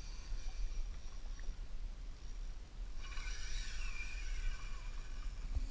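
Steady low rumble of wind and water noise around a fishing kayak at sea. About three seconds in comes a brief higher-pitched sound that falls in pitch.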